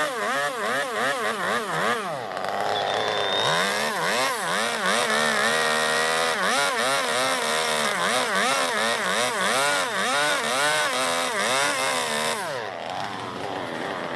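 Chainsaw's two-stroke engine revving up and down over and over, about twice a second, as it cuts into zelkova wood to hollow out a bowl; it eases off near the end.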